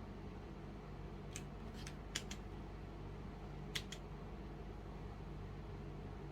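Keys of a Womier K66 mechanical keyboard with Gateron Brown switches pressed a few times, giving short clicks in quick pairs about a second and a half in and again near four seconds. A steady low hum runs underneath.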